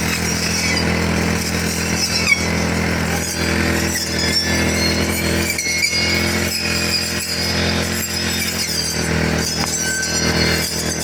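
Four-stroke brush cutter engine running steadily at an even speed, with a single sharp tick about two seconds in.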